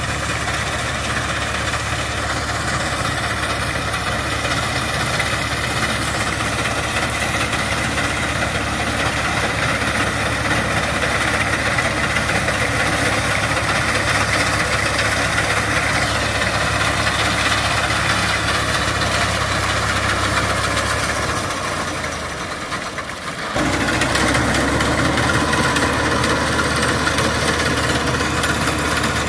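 Diesel tractor engine running steadily under load while driving a front-mounted wheat reaper. About twenty-one seconds in it fades a little, then comes back suddenly louder two seconds later.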